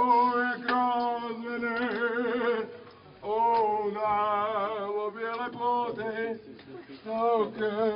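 A man singing, holding long notes with a wavering pitch and pausing briefly about three seconds in.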